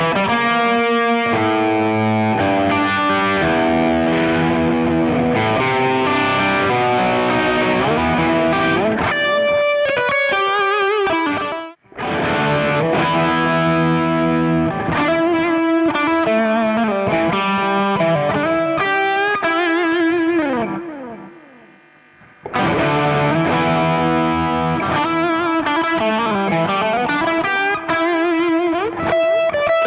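Electric guitar with humbucker pickups played through a Klon Centaur overdrive pedal, gain at maximum, picking chords and single-note lines. Playing stops abruptly about twelve seconds in and resumes for a comparison of the pedal's Magic and More Magic switch settings. Later a held note rings out and fades for about two seconds before the next phrase.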